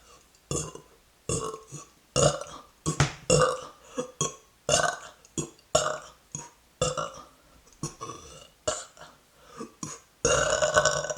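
A woman letting out a rapid string of short, gurgling burps, about twenty in all, with a longer, louder burp near the end.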